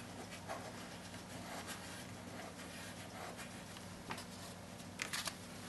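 Faint rubbing and rustling of a hand pressing a clear plastic imaging sheet onto card stock, with a few light taps near the end, over a steady low room hum.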